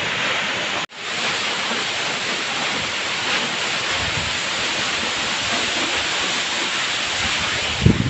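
Steady rushing noise of a waterfall, with a momentary dropout a little under a second in.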